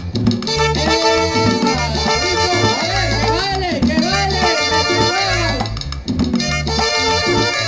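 Live tropical band music in a salsa-like style: a bass and drum beat pulsing steadily under saxophone lines, with a wavering, bending melody line in the middle.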